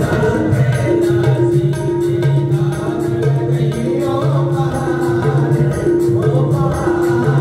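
A man singing a devotional bhajan into a microphone, amplified through loudspeakers, over hand-drum percussion with a steady beat and a repeating held instrumental note.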